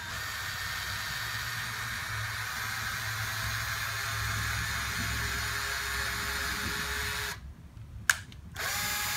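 Electric drill running steadily with a 5/64-inch bit, boring a shallow pilot hole through a Stratocaster's pickguard into the body for a pickguard screw. It stops after about seven seconds, a sharp click follows, and the drill runs again briefly near the end.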